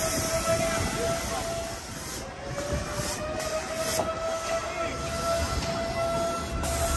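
Kiddie flying-elephant ride running, its drive giving a steady mechanical whine that rises slightly in pitch early on and then holds, over a constant hiss of background noise.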